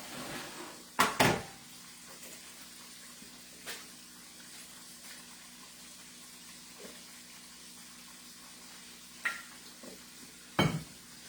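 Kitchen utensils and dishes clattering: a sharp double knock about a second in and two more knocks near the end, over the faint steady sizzle of chicken frying in oil.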